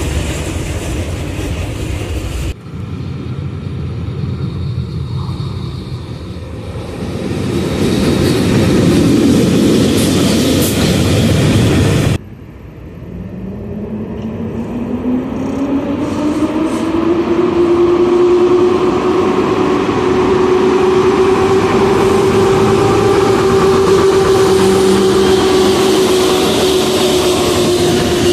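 Passing locomotives, with two abrupt cuts: the end of a diesel locomotive passing, then a locomotive running light whose noise builds over several seconds. After the second cut an EP07 electric locomotive pulls a passenger train away. Its traction motors whine with a pitch that rises for several seconds and then holds steady as the carriages roll past.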